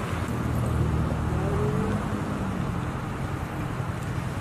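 Steady low rumble of a running motor vehicle, a little louder in the first couple of seconds.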